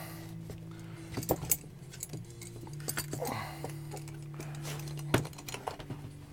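Metal G-clamp and wooden cigar-box press being handled as the clamp is loosened and repositioned: scattered clinks and knocks, a pair about a second and a half in and a sharper knock about five seconds in.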